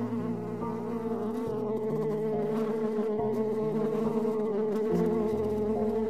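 A flying insect buzzing steadily and close, its wavering drone holding one pitch throughout, with soft background music underneath.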